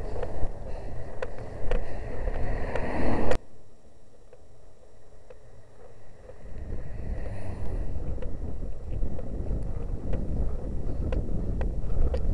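Wind buffeting the microphone of a camera riding on a bicycle, with a low rumble and scattered clicks and rattles. The rumble cuts off suddenly a little over three seconds in and builds back up a few seconds later.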